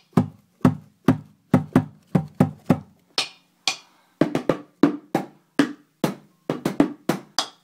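Homemade drum kit of household containers, played with drumsticks and a foot pedal: a steady run of hits, about two to three a second, mostly dull low thuds with a few sharper, brighter strikes.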